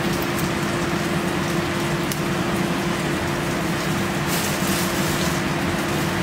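Kitchen range hood fan running: a steady even hiss with a constant hum, with a few faint clicks of handling.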